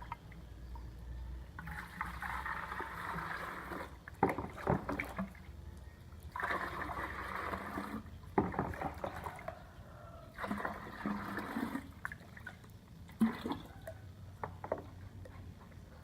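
Liquid poured into a chicken drinking-water container in three separate pours of a second or two each, with knocks and clunks of the containers being handled between them.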